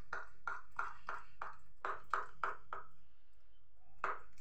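A hand stirring thin semolina (rava) idli batter in a plastic bowl: a steady run of stirring strokes, about three a second, stopping for about a second near three seconds in and starting again near the end.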